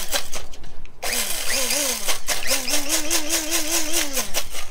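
Electric blade coffee grinder grinding beans, pulsed in short bursts whose motor whine rises and falls, then run for about two seconds with a wavering pitch as it is shaken to even out the grind. The beans and grounds rattle against the blades and lid. The motor stops shortly before the end.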